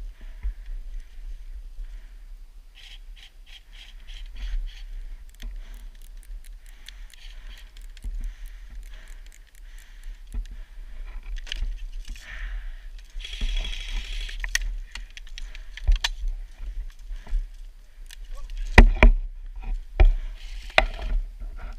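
Airsoft gunfire: sharp clicks and snaps, some in quick runs, with louder single cracks in the last few seconds, over a steady low rumble.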